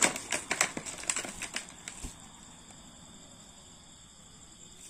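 Freshly caught fish flapping and a mesh keep-net rustling as the catch is tipped into a plastic basin: a quick run of slaps and rustles over the first second and a half, then it goes quieter.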